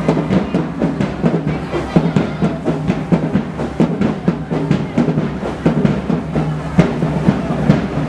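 High school marching band drumline playing a cadence: a quick, steady run of drum strokes.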